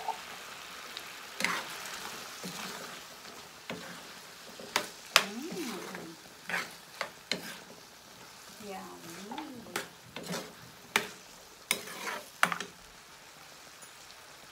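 A metal ladle scraping and clinking against a metal frying pan as a thick tomato-based beef stew with chickpeas is stirred. Sharp clinks come every second or so over the steady sizzle of the simmering stew.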